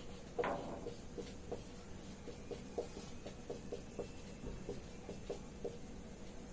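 Faint writing sounds: a series of short, separate strokes, a few a second, with a slightly louder one about half a second in.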